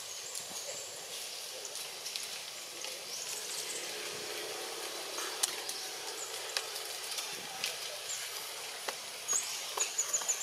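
Outdoor ambience: a steady high hiss with a few short rising bird chirps, and scattered sharp clicks that come more often near the end.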